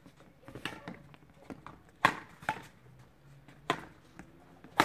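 Badminton rackets striking a shuttlecock during a rally: four sharp, crisp hits over the last three seconds, the loudest near the end.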